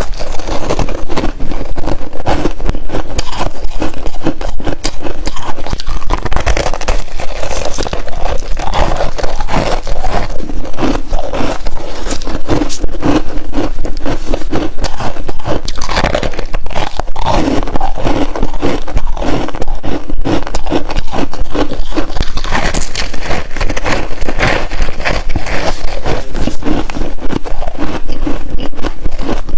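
Hard freezer frost being bitten and chewed: a continuous run of crisp, irregular crunches and scrapes.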